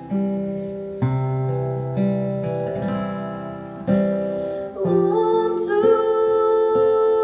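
Background music: acoustic guitar notes plucked about once a second, joined about halfway through by a held, slowly moving melody line.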